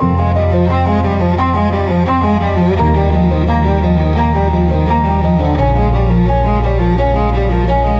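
Slow instrumental music: a cello comes in at the start, holding long deep notes that change pitch twice, about every three seconds, under quicker, higher notes.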